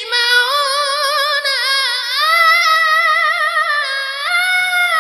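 A boy's high voice singing the drawn-out closing note of a devotional nasheed, unaccompanied, wavering in a long melisma and stepping up in pitch about four seconds in.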